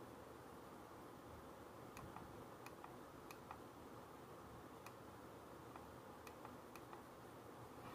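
Faint, irregular clicks of a finger pressing the control button on a Baby Safe slow cooker, about a dozen from about two seconds in, as the 2-hour cooking setting is selected, over otherwise near-silent room tone.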